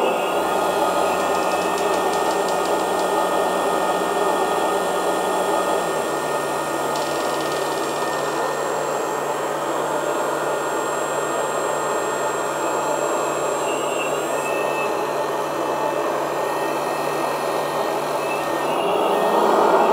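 1/12-scale RC hydraulic excavator (Hitachi ZX210 model) working its arm and bucket. Its electric hydraulic pump hums steadily, mixed with the simulated diesel engine from its sound unit. The low hum drops slightly in pitch about six seconds in.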